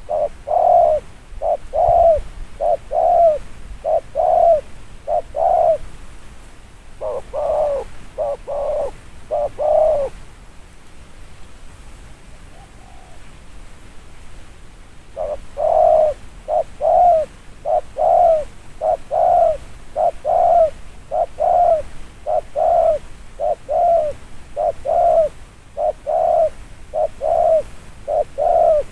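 Spotted dove cooing in quick runs of short coos; the cooing breaks off about ten seconds in for some five seconds, then resumes in a longer run.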